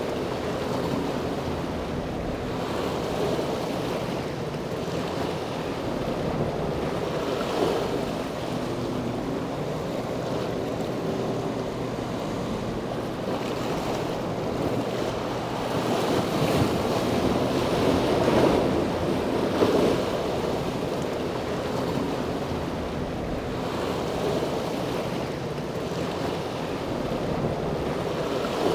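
Wind buffeting an outdoor microphone over the wash of harbour water, rising and falling gently, with a faint low steady hum beneath that fits boat engines.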